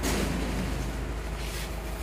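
Steady low drone of rice mill machinery running, with a short knock at the start.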